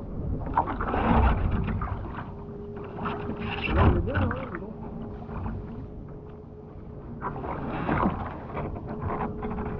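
Water splashing and sloshing around a skin-on-frame kayak and its paddler as the boat heels over onto its side and comes back upright. The splashing comes in three surges, about a second in, around four seconds, and again near eight seconds.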